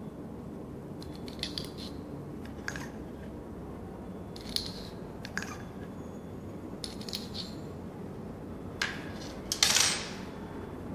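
Metal spatula clinking lightly against glass several times as white solid is tapped into a test tube, then a louder glass clink near the end as a small glass is set down on the bench. A steady low hum runs underneath.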